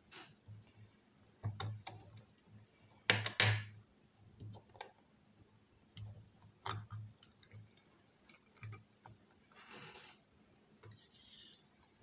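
Scattered metal clicks and clinks from handling a Miwa/Anker 3800 lock cylinder, its clamp mount and picking tools on a marble board, the loudest knocks about three seconds in. A couple of brief scraping sounds near the end.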